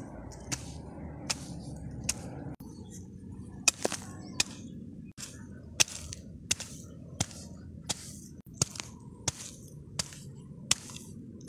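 A hoe chopping into stony garden soil in a steady rhythm, about three sharp strikes every two seconds, over a steady low background noise.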